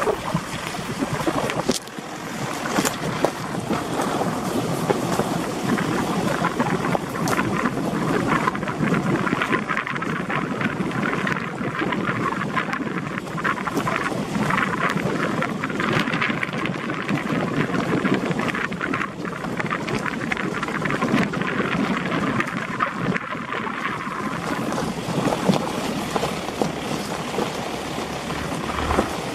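Steady rough rumble full of small crackles from travel along a stony dirt track, with no engine note in it.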